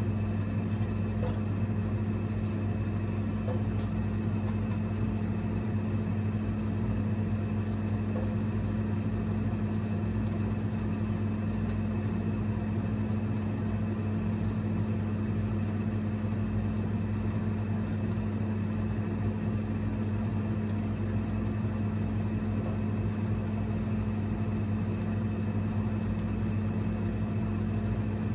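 Single-burner induction cooktop running: a steady low electrical hum with a fainter high tone above it, unchanging throughout.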